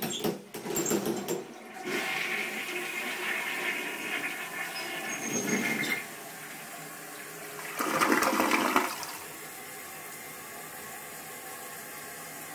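Toilet flushing. A few knocks at the start, then water rushing for about four seconds. A second, louder gush comes about eight seconds in, then a steady hiss of running water.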